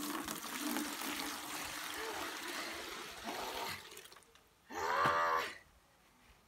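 Tap water running into a plastic bucket for about four seconds before it stops. About five seconds in, a short vocal exclamation.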